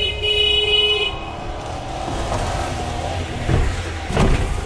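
A car horn sounds steadily for about the first second, then cuts off, leaving the low rumble of the vehicle with a couple of short knocks near the end.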